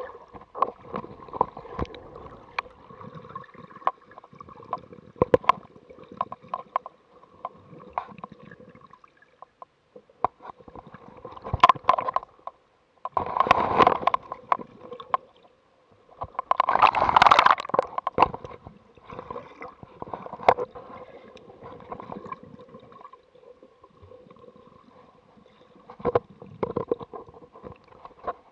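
Underwater sound heard through a camera's waterproof housing: water sloshing in the swell, with many sharp clicks and crackles. Two louder rushes of swirling water come about halfway through.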